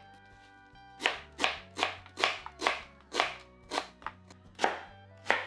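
Chef's knife dicing an onion on a bamboo cutting board: sharp knocks of the blade hitting the wood, about two a second, starting about a second in. Soft background music underneath.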